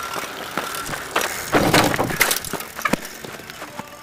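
Bicycle rattling and clattering as it is ridden over rough ground close to the microphone, with a run of knocks and clatter loudest around the middle.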